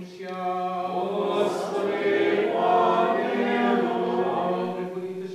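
Congregation chanting a liturgical response together, many voices in unison, for about three seconds in a Ukrainian Catholic service. A priest's intoned chanting is heard just before the response and again near the end.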